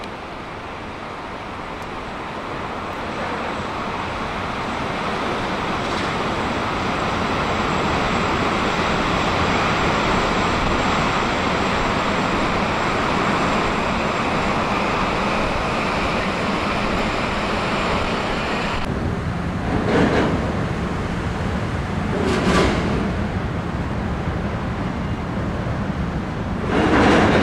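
Steady rushing roar of a Boeing 929 jetfoil's gas turbines and waterjets as it runs foilborne at speed, with a thin high whine above it; the roar swells over the first several seconds. About two-thirds through the sound turns duller, and three short gusts of wind hit the microphone near the end.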